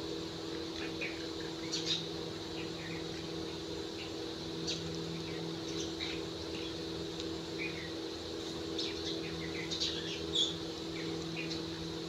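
Short, scattered bird chirps and calls, many separate ones throughout, over a steady low hum.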